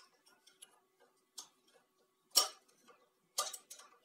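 Irregular light clicks and taps of a small hand tool working against the front of an electric water pump while a part is prised off, with one sharper knock about two and a half seconds in and a quick run of clicks near the end.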